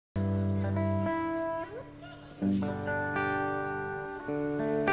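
Amplified guitars playing long, ringing chords that change every second or two, with one note sliding upward about a second and a half in.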